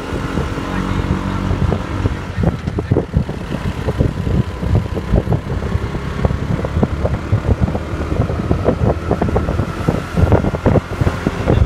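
Engine and road noise of a moving road vehicle, heard from on board: a steady low drone, with many irregular thumps and rattles from about two seconds in.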